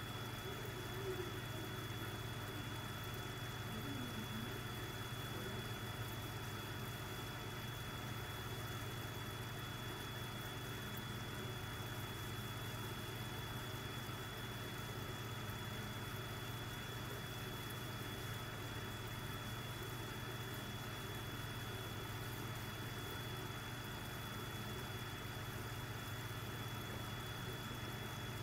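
Aquarium air pump running, a steady low electric hum with a faint thin high tone over it.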